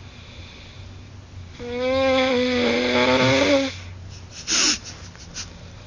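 A baby snoring: one long, buzzy snore with a steady tone, about two seconds long, starting under two seconds in. About a second after it comes a brief rush of breath.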